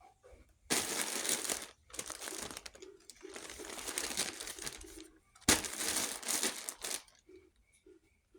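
Crinkling and crumpling in three long stretches, with short quiet gaps between. In the gaps a faint short tone repeats at an even pace.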